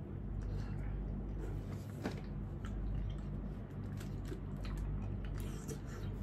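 Someone chewing and eating spicy noodles, with small wet clicks and mouth noises scattered through, over a steady low hum.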